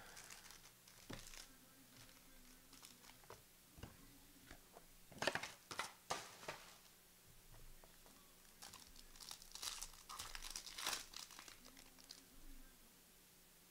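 Trading-card pack wrappers crinkling and tearing as a basketball card pack is opened by hand. The sound comes in faint scattered crackles, with the loudest clusters about five seconds in and again around nine to eleven seconds.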